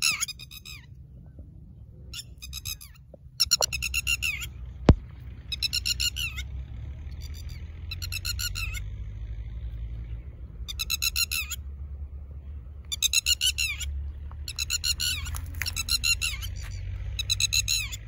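Red-wattled lapwing calling over and over: short bursts of rapid, high-pitched notes every one to two seconds. A low rumble runs underneath from about three seconds in, and a single sharp click comes about five seconds in.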